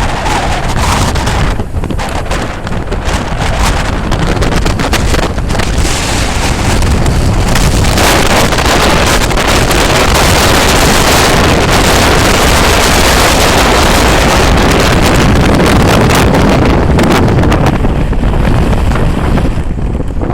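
Strong gale-force wind buffeting the camera microphone: a loud, continuous rush and rumble, heaviest through the middle, with the rough sea's surf beneath it.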